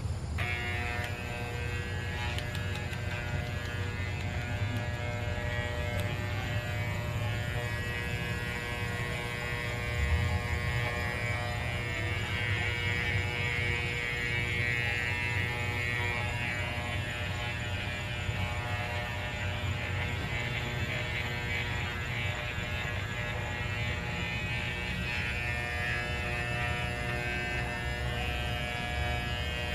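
Electric pet clippers running with a steady, unbroken hum while shaving a small dog's coat.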